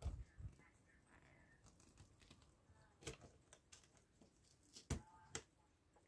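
A few faint, scattered clicks and small scrapes of steel cutter blades working under a tight pressed-on brass part on a Westclox Baby Ben clock movement, trying to lever it off its arbor; the sharpest click comes about five seconds in.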